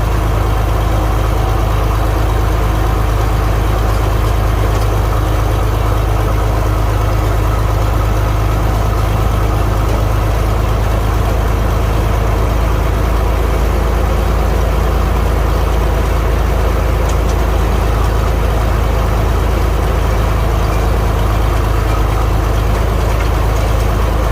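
Diesel tractor engine running steadily under load, pulling a manure spreader that is unloading. It is a constant, deep drone with no change in speed.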